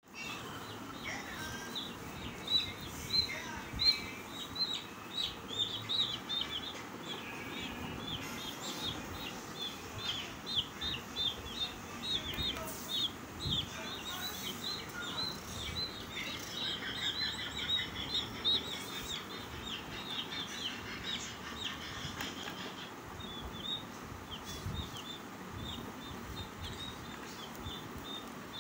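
Several young chicks peeping: a steady stream of short, high, falling peeps, several a second, with a few louder ones a few seconds in.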